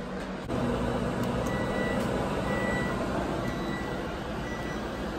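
Microwave oven running with a steady hum, then four short high beeps about a second apart, its signal that the heating time is up.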